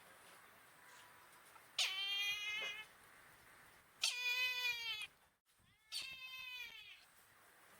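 Brahminy kite calling: three drawn-out, quavering calls of about a second each, the first starting nearly two seconds in and the other two following close together.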